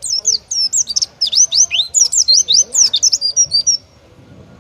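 Oriental white-eye singing a fast, loud run of high, sweeping chirps for nearly four seconds, then stopping abruptly. This is the rapid-fire 'tembakan' (shooting) song that is prized in pleci contests.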